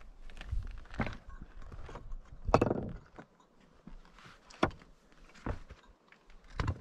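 A hiker's footsteps on a trail: irregular crunching steps about one a second, the loudest a little over two and a half seconds in.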